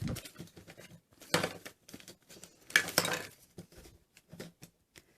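Small plastic toy grocery items knocking and clinking together as they are handled and packed, a few irregular knocks with louder clusters about a second and a half in and near three seconds.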